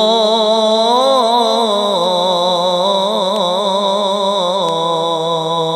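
A man reciting the Quran in melodic qirat style, holding one long, ornamented vowel whose pitch rises and falls in slow turns, amplified through a microphone.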